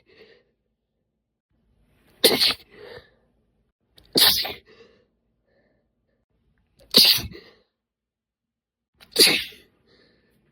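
A woman sneezing four times in a row, induced sneezes about two to three seconds apart. Each sneeze is sharp and brief, with a softer breath just after it.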